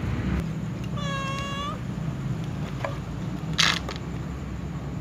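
A cat meows once, a single call of under a second about a second in, over a steady low hum. A sharp knock about three and a half seconds in is the loudest sound.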